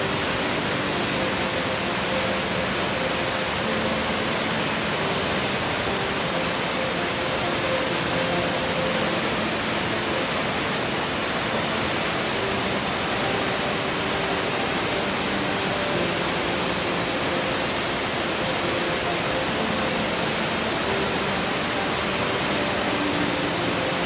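Waterfall pouring over rock ledges: a steady, even rush of falling water.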